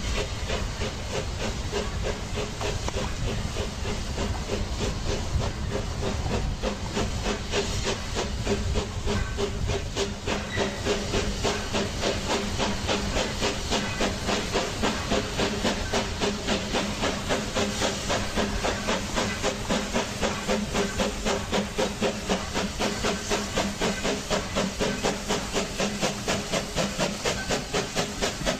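Steam locomotive working: a continuous hiss of steam with exhaust chuffs that settle into an even beat of about three a second in the second half.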